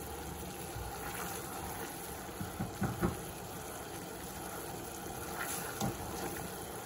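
Sugar syrup at a rolling boil in a steel pot on a gas stove: a steady bubbling hiss, with the syrup almost done. A few light knocks come around the middle and one more near the end.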